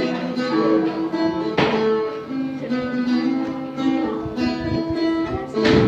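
Phin, the Thai Isan plucked lute, playing a melody of ringing plucked notes, with a sharper accented strike about one and a half seconds in and another near the end.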